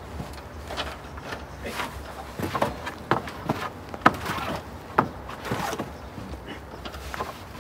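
Wooden plank fence creaking and knocking under a person's weight as they climb over it, with shoes scuffing against the boards: a string of irregular short knocks and creaks, the sharpest about four and five seconds in.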